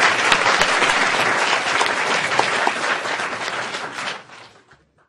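Audience applauding at the close of a lecture, a dense patter of many hands clapping that fades away about four seconds in.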